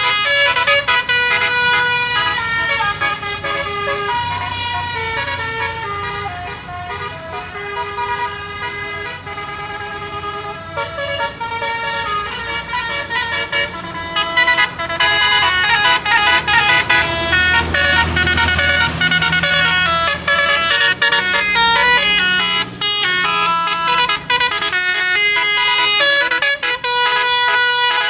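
A bus's multi-tone telolet (basuri) horn playing a melody of stepping notes, with the bus engine running low underneath. Sharp clicks come in through the second half.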